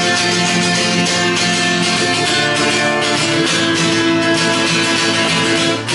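Acoustic guitar strummed hard and fast in a steady rhythm, with a momentary break near the end.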